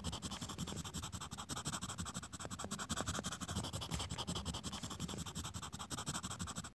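Pen-writing sound effect: a steady, rapid scratching of a pen across a writing surface, which cuts off abruptly near the end.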